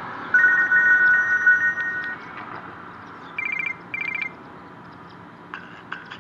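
Nokia N97 ringtones played through a Nokia 150 phone's small speaker. First comes a warbling two-note trill lasting about two seconds. Then two short buzzy rings follow about half a second apart, and a few brief clicks come near the end.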